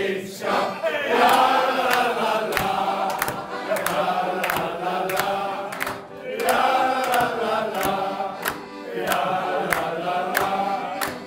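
Group of men singing a song together to piano accordion accompaniment, with a sharp tick about twice a second, on the beat. The singing breaks briefly between lines about six seconds in.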